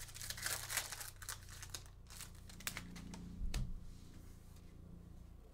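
Wrapper of a Panini Prism football card pack being torn open and crinkled: a dense run of crackling over the first two seconds, then lighter rustling with one soft knock about three and a half seconds in.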